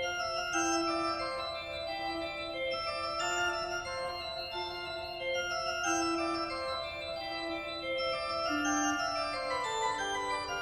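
Background music: sustained organ-like keyboard chords, the notes changing every half second to a second over a moving bass line.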